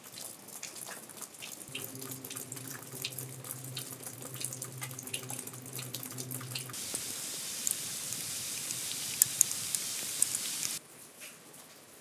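Water dripping in irregular ticks from the eave of a metal-roofed trail shelter, with a low steady hum from about two seconds in to about seven. Then a denser, brighter hiss with sharper ticks of precipitation on the roof takes over and cuts off abruptly near the end.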